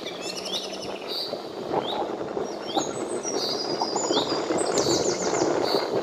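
Several wild birds chirping: a short rising call repeated about once a second, with rapid high trills from other birds, over a steady low background noise.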